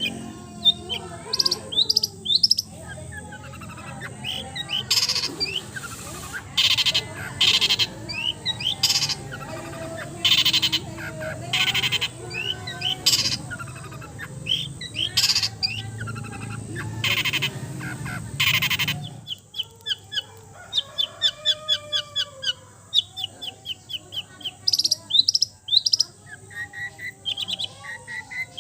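Songbirds singing and calling in a dense, layered mix, with loud harsh rasping notes repeating over a low hum. About two-thirds through the hum stops and rapid runs of high, sparrow-like chirps take over.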